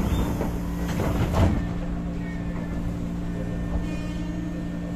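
Steady electrical hum inside a 203 series electric commuter train car, holding one pitch, with a few knocks and thuds in the first second and a half.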